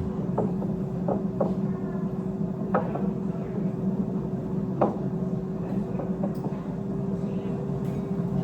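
Steady low mechanical hum with a constant tone, like a running kitchen appliance or fan. Over it come a few light knocks and clatters, the loudest about five seconds in.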